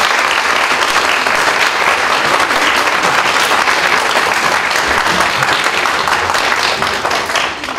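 Audience applauding: a dense, even patter of many hands clapping that thins out to a few scattered claps near the end.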